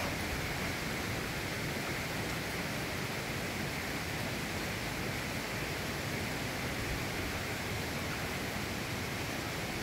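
Steady, even outdoor background hiss with no barks, voices or other distinct sounds.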